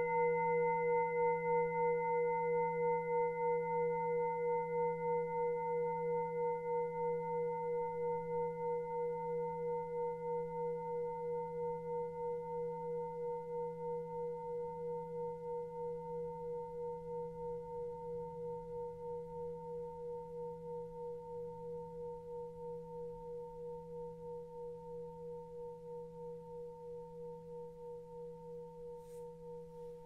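Tibetan singing bowl ringing on after a strike, a wavering hum with several overtones that fades slowly, the bowl's cue for a change of Reiki hand position. A faint click near the end.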